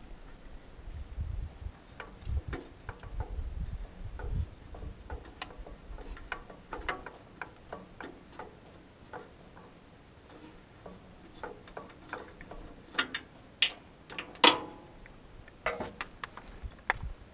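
Irregular small clicks and taps of hands working wires and metal parts in a tractor's engine bay, with a few sharper clicks near the end. A low rumble runs under the first few seconds.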